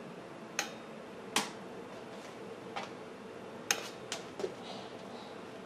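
About six sharp clicks at uneven intervals, the loudest about a second and a half in and just before the four-second mark, over a faint steady hum.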